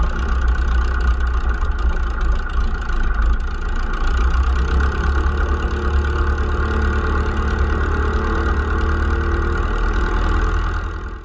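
Auster J4's Blackburn Cirrus Minor four-cylinder engine running steadily at low taxiing power, propeller turning, heard close up from the wing strut. It fades out near the end.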